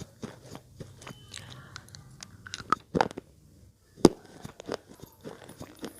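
Slate pencil bitten and chewed between the teeth: a run of sharp, crunchy snaps and gritty chewing. The loudest bite comes about four seconds in.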